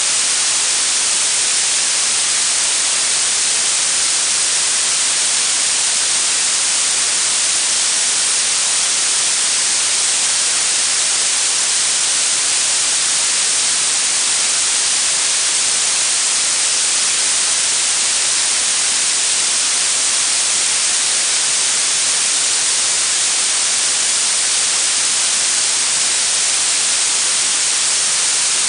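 Blue noise: a steady, even hiss, strongest in the treble and thin in the bass.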